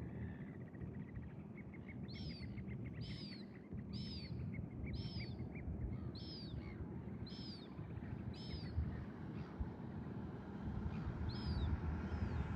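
A bird calling: a high, arching note repeated about once a second, seven times, then once more near the end, over a fast run of short ticking notes during the first half. A steady low background rumble runs underneath.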